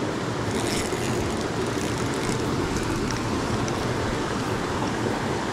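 Steady rushing of water in a small mountain stream, an even, unbroken noise.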